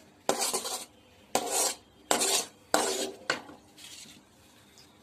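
A metal spoon scraping and stirring thick halwa around a kadai, in five strokes over about three seconds.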